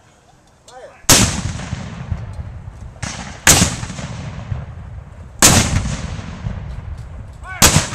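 Civil War muzzle-loading field cannons fired one after another with black-powder charges: four shots about two seconds apart, each a sharp blast followed by a long rumbling echo.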